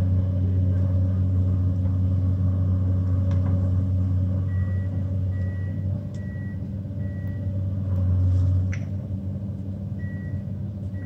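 Excavator's diesel engine running steadily with a low drone. From about four seconds in, and again near the end, a short high beep repeats about once a second.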